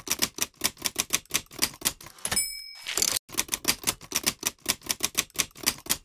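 Manual typewriter keys clacking in a quick run. A little after two seconds in, the margin bell dings and the carriage is slid back, and then the typing starts again.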